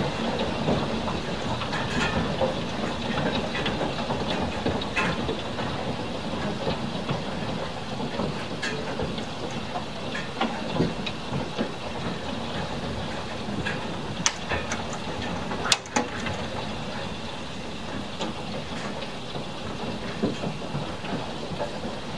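Heavy hailstorm with rain: a steady rush of falling rain and hail, dotted with irregular sharp knocks of hailstones striking hard surfaces, the loudest about two-thirds of the way through.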